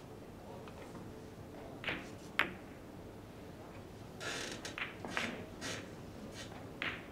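Billiard shot on a carom table: the cue striking the ball and then ball-on-ball clicks as the balls run across the table, heard as a handful of sharp knocks spread over several seconds.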